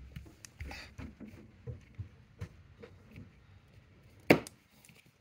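Small plastic Lego bricks clicking and tapping as they are handled and pressed together, with a single sharp knock about four seconds in.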